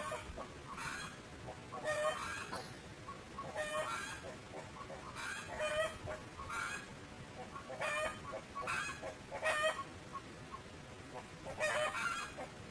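Short animal calls repeating every second or two, each a quick run of pitched notes, over a steady background hiss.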